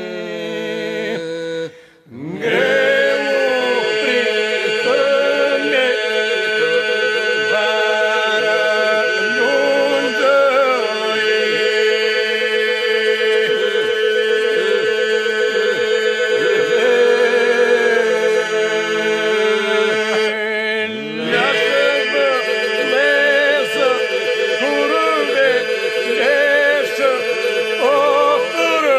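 Unaccompanied Lab-style Albanian polyphonic folk singing: a group holds a steady drone while lead voices sing ornamented, wavering lines above it. The singing breaks off briefly about two seconds in, and again around twenty-one seconds, before the voices come back in.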